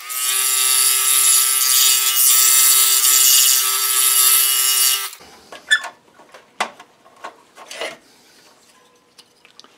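Scroll saw running and cutting through wood with a steady, even pitch for about five seconds, cutting out a window inside a toy truck body, then switched off; a few light clicks and knocks follow.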